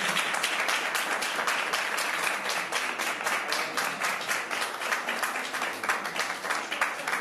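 Audience applauding, a dense patter of hand claps.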